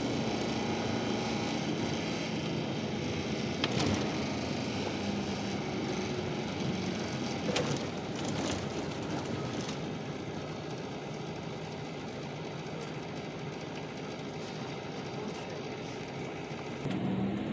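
Bus engine and road noise heard from inside the cabin: a steady drone, with a few brief knocks or rattles.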